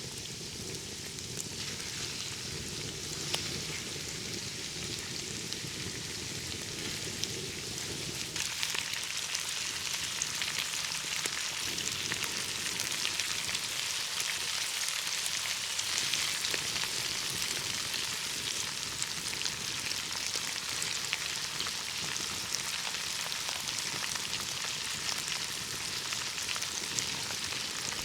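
Food frying in hot oil in a pan: a steady crackling sizzle that grows louder about eight seconds in.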